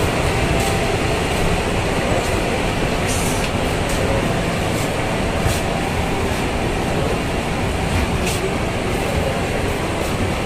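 Steady, loud rumble and hiss inside an airport jet bridge as passengers walk along it to the aircraft, with a few faint ticks.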